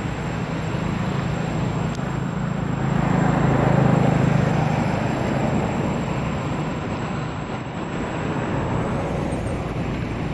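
Steady low outdoor rumble, swelling about three seconds in and again near eight seconds.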